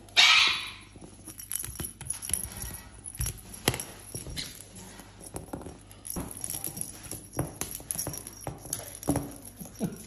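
Caiques playing with plastic toy balls: a loud, harsh squawk right at the start, then scattered taps, knocks and jingling as the belled balls are pushed, carried and dropped on a hard floor.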